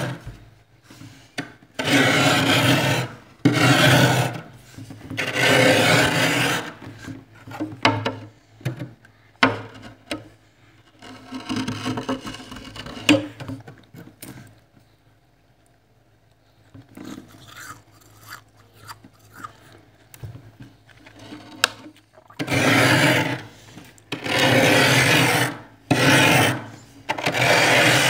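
Metal spoon scraping thick frost in a freezer, in repeated strokes about a second long that rasp and crunch through the ice. In the middle there is a quieter spell of light scratches and small clicks, and strong strokes come back near the end.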